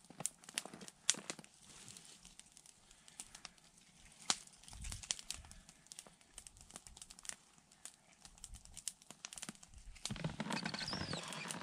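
Small campfire of dry twigs crackling, with sharp, irregular pops, and a denser rustling from about ten seconds in.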